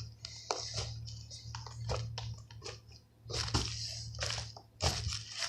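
Homemade fluffy slime being squished and stretched by hand: a string of short, irregular wet clicks and pops, with a low steady hum under it.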